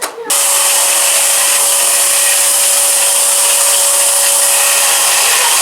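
Eureka Forbes Euroclean X-Force 1400-watt vacuum cleaner motor, run as a blower, switched on abruptly about a third of a second in and then running loud and steady. A thin steady whine sits in the air noise and fades near the end.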